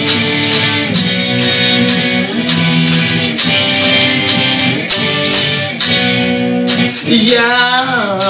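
Strummed chords on a sunburst single-cutaway electric guitar, played in a steady rhythm. A man's singing voice comes back in near the end.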